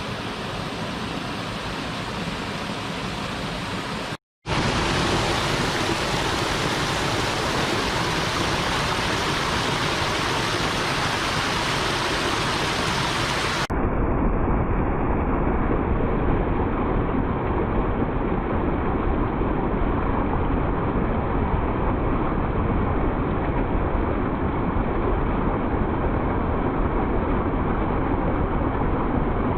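Stream water rushing steadily. It drops out for a moment about four seconds in, and about halfway through it turns abruptly duller and deeper.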